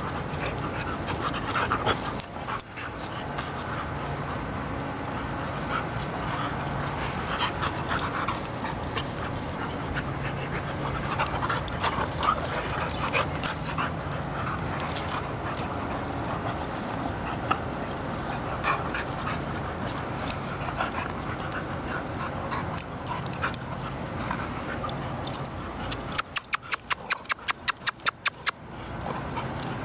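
An adult American Bulldog and her puppy play-wrestling, with short dog vocalizations scattered throughout. Near the end comes a rapid run of sharp ticks, about six a second, lasting a couple of seconds.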